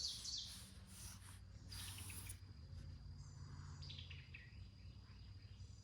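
Faint outdoor ambience: soft bird chirps and a thin steady insect buzz over a low hum.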